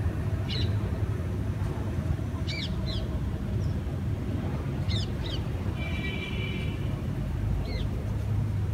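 Outdoor ambience: a steady low rumble with a bird chirping briefly about six times, and a short buzzy call about six seconds in.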